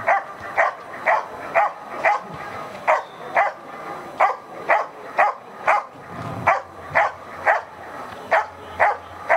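A German Shepherd barking steadily, about two sharp barks a second, at a helper who is standing still: the guard-and-bark phase of a protection exercise.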